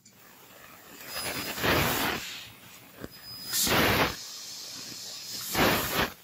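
Fiber laser cutting machine hissing in three short bursts about two seconds apart, one for each hole it cuts through the sheet metal; the hiss is the assist gas jetting from the cutting nozzle, and it drops back between holes while the head moves on. A single light click near the middle.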